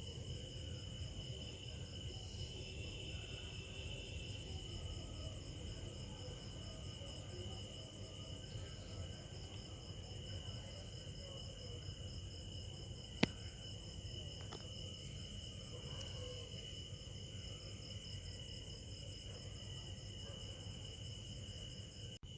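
Crickets trilling steadily over a low background hum, with a single sharp click a little past halfway through.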